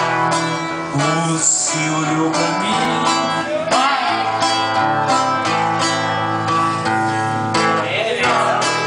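Music led by a strummed acoustic guitar, with a voice gliding in briefly twice.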